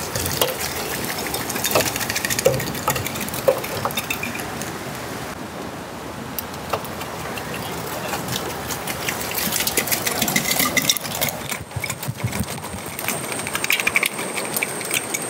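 Thick seafood gravy and pieces sliding and plopping out of upturned glass jars into a large aluminium pot, with scattered knocks of glass on metal. Behind it runs the steady rush of a river, and a thin high whine comes in about eleven seconds in.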